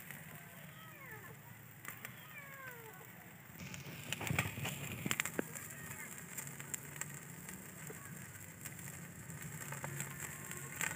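Wood fire crackling in a clay tandoor under skewered chicken. A cluster of sharper snaps and pops comes about four to five seconds in, followed by scattered smaller crackles. Faint calls gliding up and down can be heard in the first three seconds.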